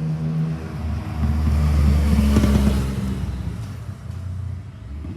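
A motor vehicle passing by: a low rumble that swells to its loudest about two and a half seconds in, then fades.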